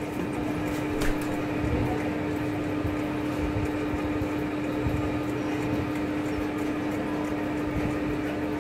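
Three-phase electric spiral dough mixer running after being restarted from the start button: a steady motor hum with one steady tone.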